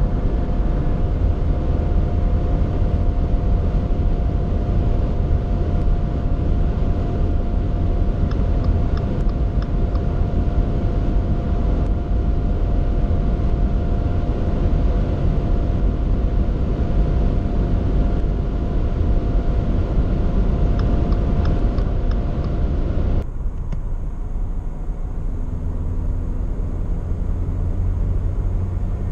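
Subaru XV 2.0i's four-cylinder boxer engine held at high revs by the Lineartronic CVT near top speed, heard inside the cabin as a steady drone under heavy wind and road noise. About 23 seconds in it cuts abruptly to a quieter, duller cabin sound, with the engine near 3,000 rpm at around 100 km/h.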